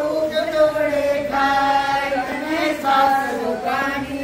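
Voices singing together in a slow, chant-like song, with long held notes that change pitch only now and then.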